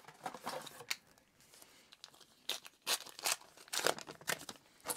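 A foil trading-card booster-pack wrapper being torn open and crinkled: soft rustling broken by several sharp crackles.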